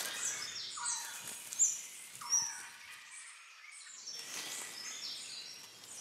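Tropical forest birds calling: many short high chirps and whistles, with two louder, lower calls that slide down in pitch about one and two and a half seconds in, over a faint steady hiss of forest background.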